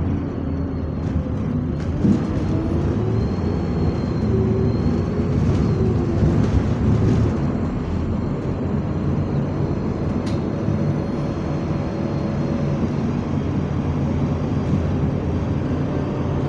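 Bus engine and drivetrain running steadily as the bus drives along, heard from inside the passenger saloon, with a steady hum whose pitch shifts a little with speed.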